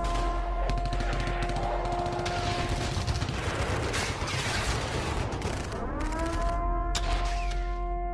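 Rapid machine-gun fire as a sound effect over music, pausing briefly partway through. A held horn-like tone swells up in pitch at the start and again about six seconds in.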